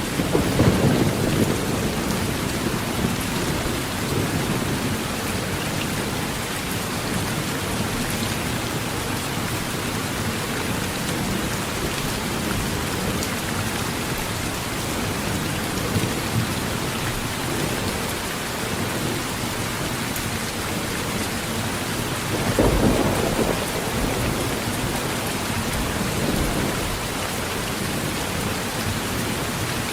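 Heavy rain drumming steadily on a metal tin roof, with thunder rumbling twice: once just after the start and again about two-thirds of the way through.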